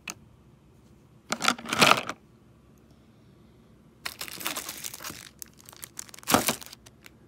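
Handling noise from plastic drill pens and their plastic packaging in a cardboard box. There are two stretches of crinkling and rustling, then one sharp clack near the end.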